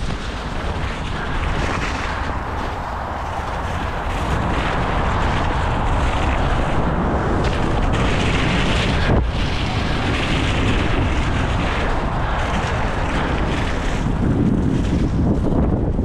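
Wind buffeting the action camera's microphone as a Transition Patrol mountain bike rolls fast down a leaf-covered dirt trail, its tyres rushing over leaves and dirt. The noise grows louder about four seconds in.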